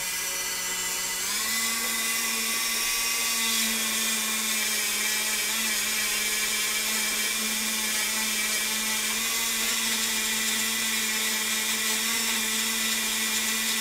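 Handheld rotary tool running steadily with a polishing wheel buffing a diecast metal car body. Its motor whine steps up slightly in pitch about a second in, then holds.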